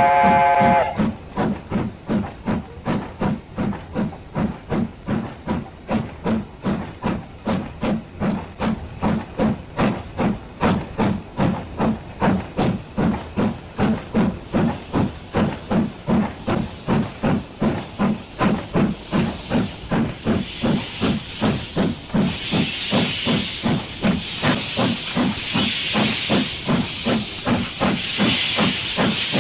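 JNR 9600-class steam locomotive No. 49672 working a freight train, its exhaust beating in a steady, even chuffing rhythm. A steam whistle cuts off about a second in, and a steam hiss grows louder through the second half.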